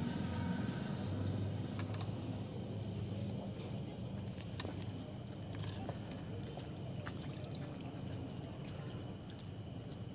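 Steady high-pitched insect chorus with a fast, even pulse, over a low rumble, with scattered light clicks and taps.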